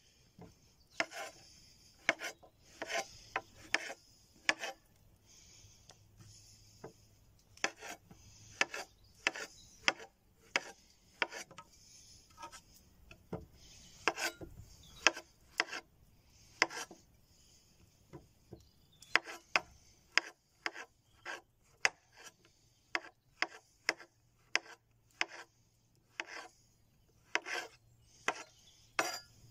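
Chef's knife slicing white button mushrooms on a wooden chopping board: a run of sharp knocks as the blade strikes the board, irregular, about one or two a second, with short pauses.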